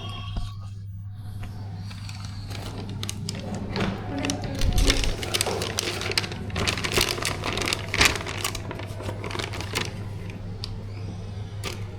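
Quick small clicks, taps and snips of hand work at a table, coming thicker from about four seconds in, over a steady low hum.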